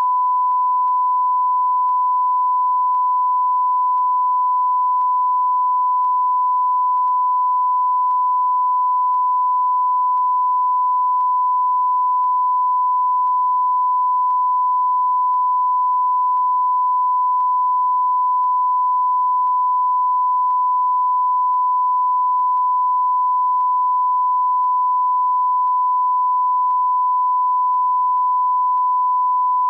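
Broadcast line-up tone: one steady, unbroken 1 kHz sine tone of the kind sent with colour bars when no programme feed is going out.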